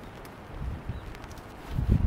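Gusty wind buffeting the microphone as uneven low rumbles, with a stronger gust near the end, over faint ticks and rustle of a guy rope being tied to a tent pole.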